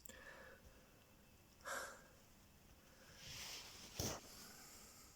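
Near silence, with two short breath sounds, the first about a second and a half in, and a brief soft knock about four seconds in.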